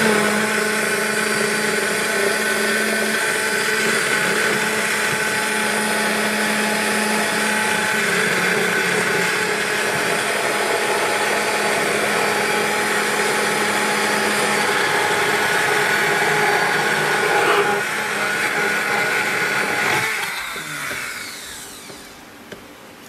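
Immersion hand blender running steadily in a tall cup, emulsifying egg yolks and hot butter into béarnaise sauce. About twenty seconds in it is switched off and winds down.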